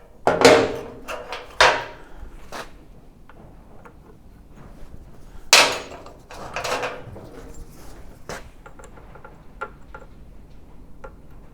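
Loud knocks and clattering of workshop handling: a burst of heavy clunks near the start, another about five and a half seconds in, then lighter clicks and taps.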